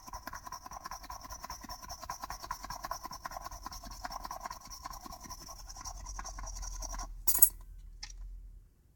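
Rapid, steady scratching as the coating is scraped off a scratch-off game card, lasting about seven seconds, then a brief louder burst of noise and a faint click before it stops.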